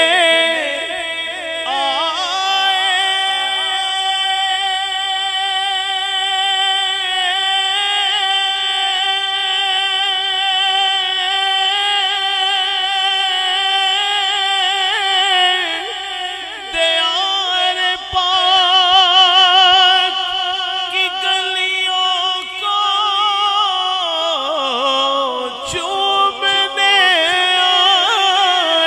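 A man singing a naat unaccompanied, drawing out one long held note for over ten seconds, then winding it through wavering vibrato and melodic turns that dip lower and climb again near the end.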